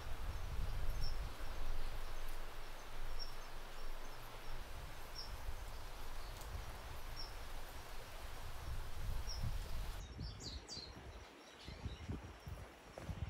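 Outdoor ambience of wind rumbling on the microphone, with a bird giving a short high chirp about every two seconds. About ten seconds in, the background changes abruptly to a quieter one with a few scattered chirps.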